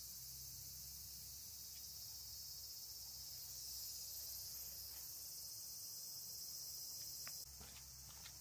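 A steady high-pitched chorus of insects chirring. A few faint footsteps on the path come near the end.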